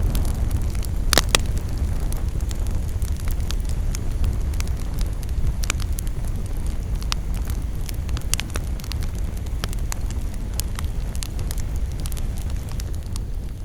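Campfire burning: a steady low rumble under scattered sharp crackles and pops of burning wood, the loudest a quick double pop about a second in.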